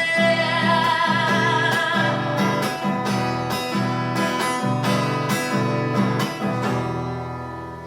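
Live guitar strummed in a steady rhythm, about two strokes a second, closing out the song. The strumming stops shortly before the end and the last chord rings away.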